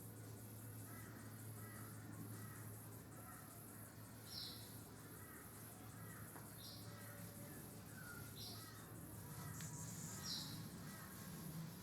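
Faint birdsong: warbling calls with a short, high chirp repeating about every two seconds, over a low steady hum.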